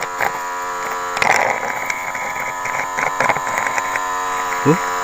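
Small battery-powered honey suction pump running with a steady electric hum while its tube draws honey from stingless bee honey pots, with a short hiss and scattered clicks about a second in.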